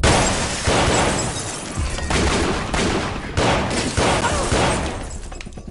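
A gunfight: a rapid, sustained volley of gunshots with a fresh burst of shots every second or so, loudest at the start, with dramatic music underneath.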